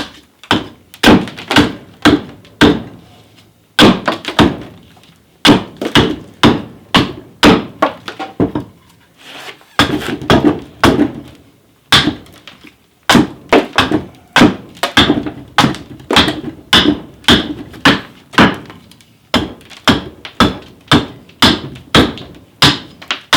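Repeated wooden thunks of blows into a chunk of green sycamore, about two a second in runs with short pauses between.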